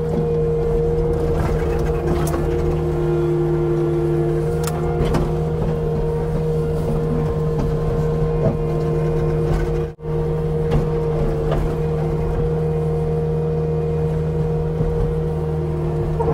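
Cat 259 skid steer's diesel engine running steadily under load, with a steady hydraulic pump whine, while it cuts a ditch. A few knocks are heard, and the sound breaks off briefly about ten seconds in.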